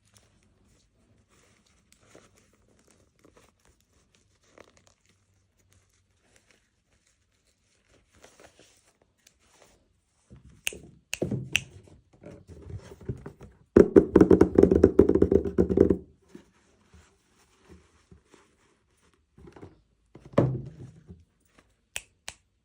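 Hands opening blind-box toy packaging: a few sharp clicks and taps, then about two seconds of loud tearing and crinkling of the wrapper in the middle, and a shorter rustle with clicks near the end.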